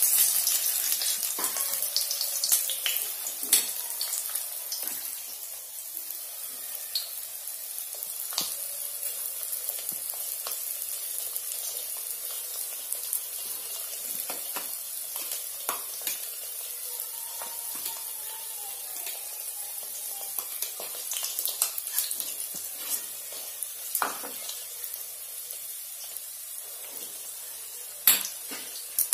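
An egg paratha sizzling in hot oil in a kadai: a steady hiss with scattered pops and crackles, loudest in the first few seconds after it goes into the oil, with a sharp pop near the end.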